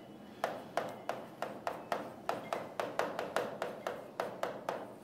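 A pen tapping and clicking on the glass of an interactive display as words are handwritten on it: quick, uneven clicks, about four a second.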